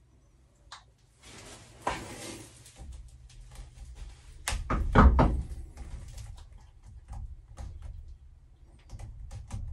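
Handling noises: a run of knocks, clicks and rustling, with the loudest cluster of knocks about five seconds in.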